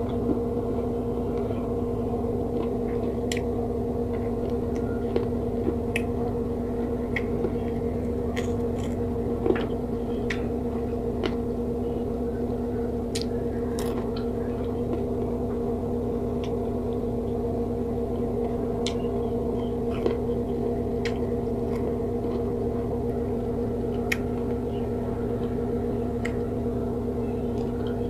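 Close-miked eating sounds: chewing with scattered short clicks and smacks from the mouth and fingers. A steady low hum runs underneath and is the loudest constant sound.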